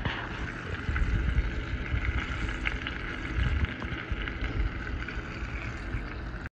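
Chicken nuggets deep-frying in hot oil: a steady sizzle over a low rumble, with a few faint ticks, that cuts off abruptly.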